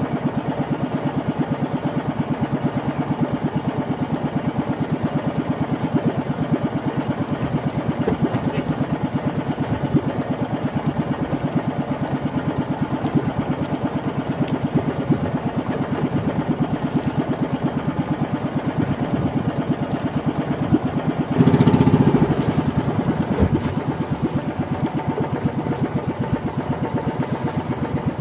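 Small single-cylinder engine of a motorized outrigger fishing boat running steadily underway, a fast even pulsing drone. About three quarters of the way through there is a louder burst of about a second and a half.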